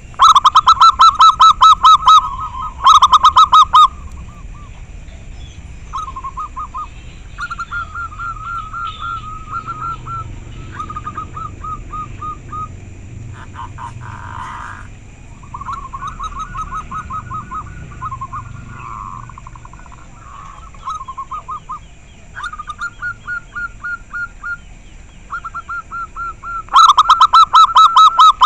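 Zebra doves (perkutut) singing: loud rapid staccato trilled coos, twice near the start and once more near the end, with fainter doves answering in short phrases in between.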